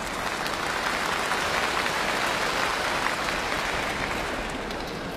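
A large arena crowd applauding, swelling during the first second or two and then easing off.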